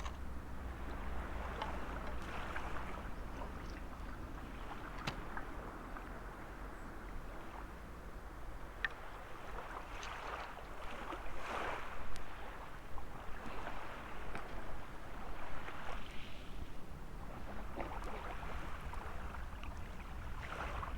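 Small waves washing on a sandy beach, swelling and ebbing every few seconds over a steady low rumble, with a few light clicks.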